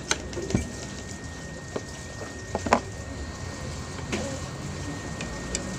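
Eating utensils clinking against a plate: a few short, sharp clinks, the loudest a quick cluster about two and a half seconds in, over a steady background hum.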